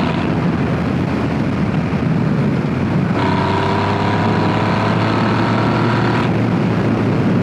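Triumph Rocket III's three-cylinder engine running at road speed with wind rush. About three seconds in, the throttle opens and the engine note climbs slowly for about three seconds, then drops back sharply as it is rolled off.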